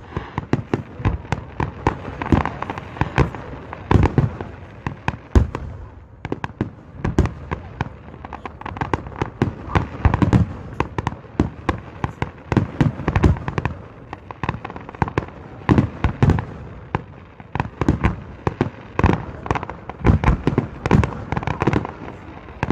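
Fireworks display going off in a dense, unbroken barrage of bangs and crackling bursts, several a second.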